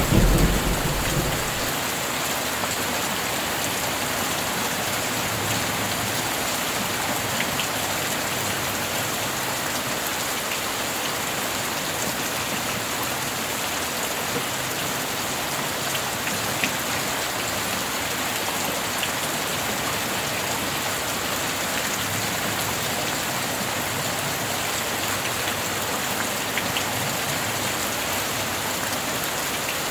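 Steady heavy rain falling, with the low rumble of thunder dying away in the first second or two. A few sharper drop ticks stand out here and there.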